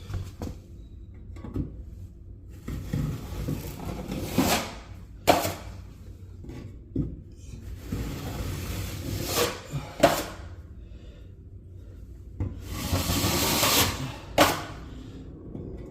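Drywall knife scraping joint compound across a wall patch in three long strokes, with several sharp knocks of the knife in between.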